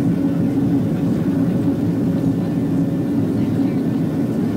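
Passenger jet cabin noise: the airliner's engines and airflow make a steady low drone, heard from inside the cabin.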